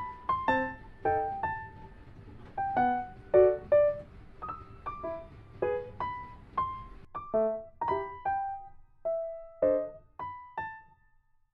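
Background piano music: gentle single notes and small chords, each dying away after it is struck, fading out near the end.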